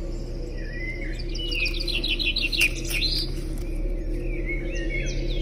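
Songbird singing: a chirp, then a rapid run of about a dozen short descending notes, then more chirps near the end, over a steady low hum. The birdsong is said to be a looped recording played from hidden speakers, not live birds.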